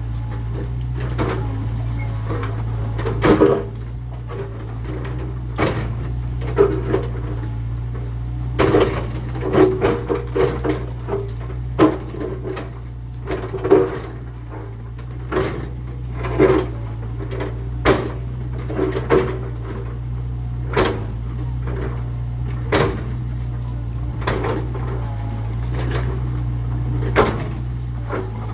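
Mini excavator's engine running steadily under repeated sharp cracks and knocks of wood and debris as an old building is torn down.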